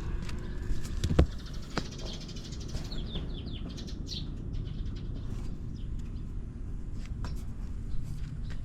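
Quick high bird chirps a few seconds in, over a low steady rumble, with a sharp knock about a second in.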